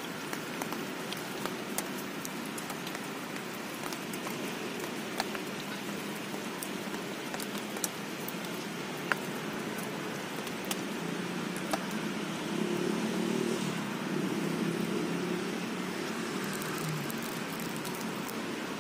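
Rain falling: a steady hiss with scattered sharp drop ticks. A low hum swells for a few seconds about two-thirds of the way through.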